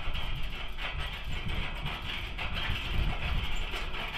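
Old metal farm windmill turning in the wind, its head and gearing rattling irregularly, with wind buffeting the microphone.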